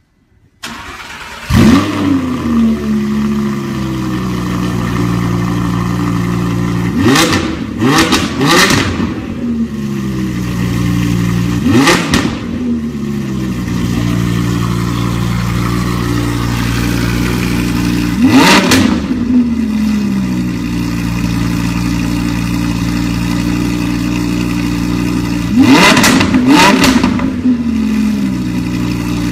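Audi R8 V10 Plus's naturally aspirated 5.2-litre V10 cold-started through a valved Fi Exhaust system: it fires up with a surge of revs, settles into a steady idle, and is blipped six times, twice in quick succession about seven seconds in, once alone twice after that, and twice more near the end.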